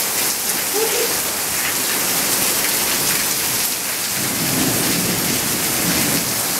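Heavy rain pouring steadily, with a low rumble of thunder from about four seconds in.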